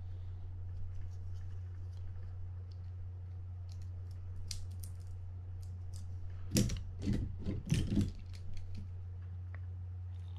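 Small clicks and scrapes of a utility-knife blade prying at the metal body of a spinning reel, then a few louder knocks partway through as hand tools are set down and picked up on the bench, over a steady low hum.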